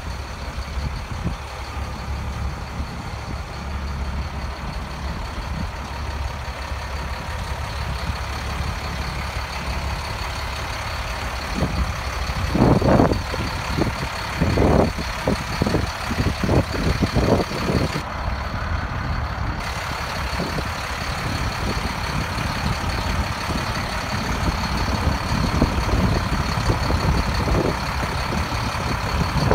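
A truck engine idles with a steady low rumble. A cluster of irregular low rumbling bursts comes through about midway.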